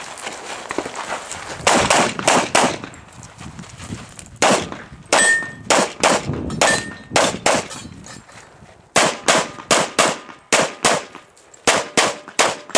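Semi-automatic pistol firing about twenty shots in quick pairs and short strings, with brief pauses between groups.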